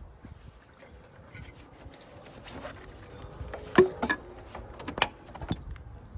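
Irregular clicks and metallic clinks of hand tools working on an engine, the loudest about four seconds in with a brief ring, and another a second later.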